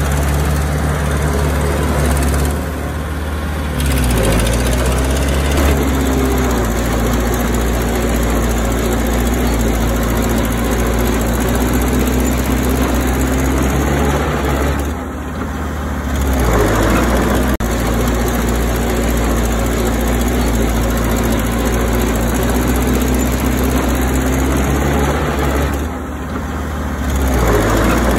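Heavy diesel engine of earthmoving machinery running hard with a rattling, knocking edge. It eases off briefly three times, about every eleven to twelve seconds, as the load changes.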